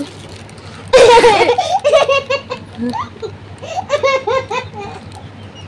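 A young girl laughing: a loud, high-pitched fit of laughter about a second in, followed by further runs of laughing.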